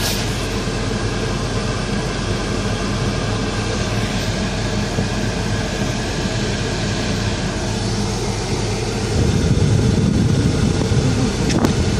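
A car engine running with a steady hum, growing louder about nine seconds in.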